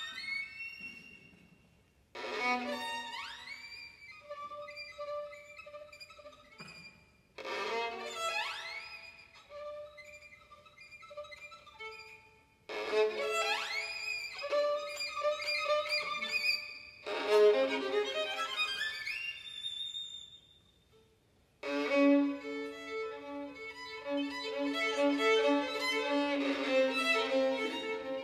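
Solo violin playing a contemporary piece in separate phrases. Each phrase starts with a sharp bowed attack and quick upward slides, then fades almost to nothing. From about two-thirds of the way through, the playing settles into sustained notes held over a steady low note.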